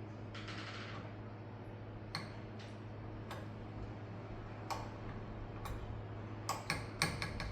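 Scattered sharp clicks, a few spaced about a second apart and then a quicker run near the end, over a steady low hum, with a brief rustle about half a second in.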